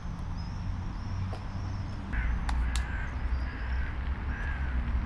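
Outdoor park ambience: a steady low rumble of distant traffic or wind, with a bird calling in four or five short repeated notes from about two seconds in, and a few sharp clicks.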